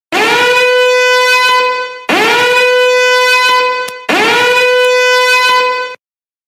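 A horn-like meme sound effect blared three times in a row. Each blast swoops up into a single held note for about two seconds, and the next one restarts abruptly.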